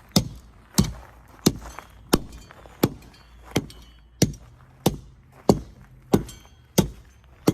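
A sharp knock repeated at an even pace, about three every two seconds.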